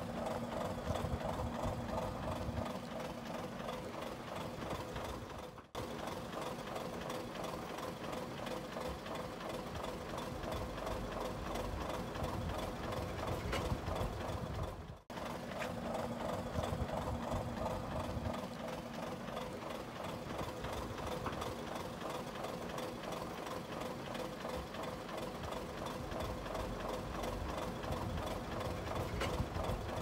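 Heavy diesel engine of earthmoving machinery running steadily with a fast mechanical clatter; the sound breaks off sharply for a moment twice, about six and fifteen seconds in.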